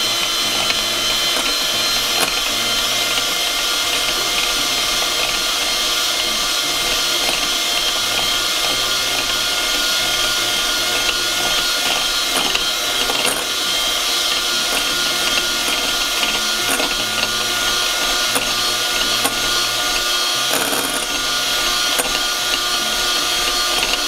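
Electric hand mixer running at a steady speed, its beaters whisking egg whites to a froth in a glass bowl.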